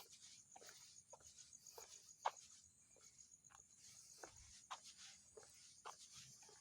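Faint, irregular soft ticks and clicks, roughly two a second, one louder tick a little over two seconds in, over a steady high hiss, heard at night as unexplained 'strange sounds'.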